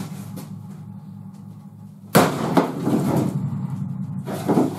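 A sharp bang about two seconds in, followed by about a second of knocking and scraping and another knock near the end, over a steady low hum.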